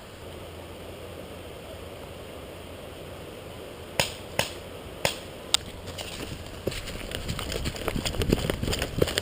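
A few sharp isolated clicks, then quick, growing footsteps of someone moving fast over the ground.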